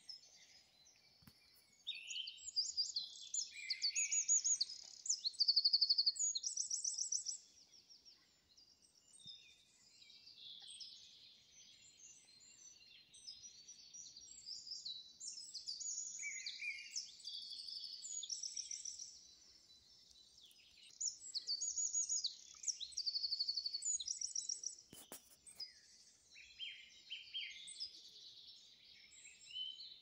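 Songbirds singing: several overlapping phrases of quick, high, repeated notes and trills, loudest in spells with quieter gaps between.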